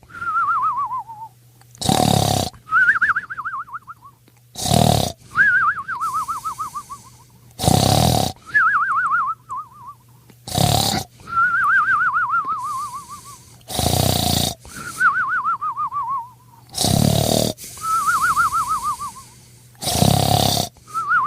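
Cartoon-style snoring sound effect, repeating about every three seconds. Each cycle is a loud rasping snore followed by a warbling whistle that falls in pitch.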